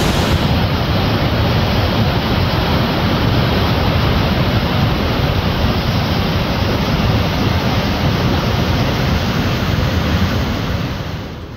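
Floodwater rushing in a swollen river, a loud steady wash of water noise that eases near the end.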